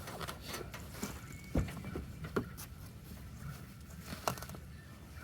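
A few sharp knocks and clacks as a fabric-covered window valance, with its fibreboard and nailed frame, is handled and pulled apart by hand. The loudest knock comes about a second and a half in, with others about a second later and near the end.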